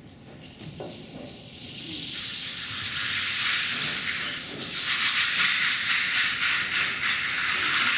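Audience applause, a dense crackle of many hands clapping that swells over the first couple of seconds and keeps going.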